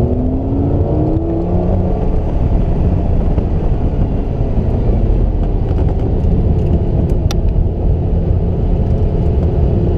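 Lamborghini sports car's engine accelerating hard at full throttle in second gear, heard from inside the cabin: its pitch rises over the first second and a half, then it keeps running at high revs over a heavy low rumble.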